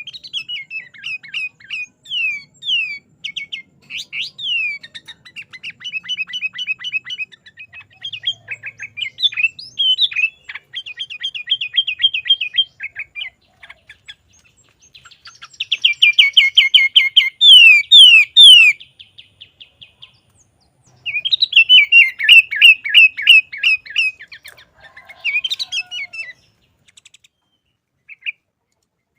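Sooty-headed bulbul singing vigorously: long runs of rapid, high chirps and trills, loudest in two phrases past the middle, then falling mostly quiet apart from a few single chirps near the end.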